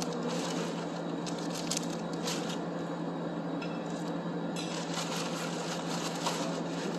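Small plastic seasoning sachets being handled over an instant-noodle cup, giving a few brief clicks and rustles over a steady hum.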